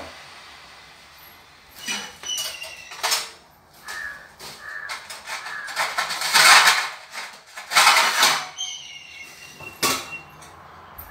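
Kitchen handling sounds: a wooden spatula scraping and knocking in a steel pan of thick ragi kali on a gas stove, several separate scrapes, the loudest a little after halfway.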